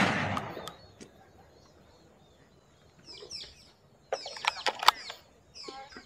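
A shotgun blast dying away over the first second, then a run of sharp clicks and short chirps about four to five seconds in, with a few more chirps near the end.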